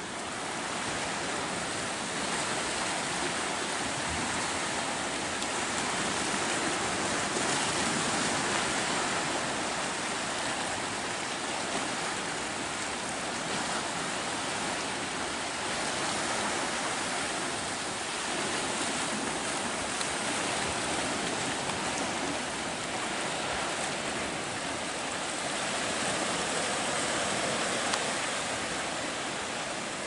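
Steady rushing of sea water washing over rocks and into narrow sea caves, swelling and easing slowly.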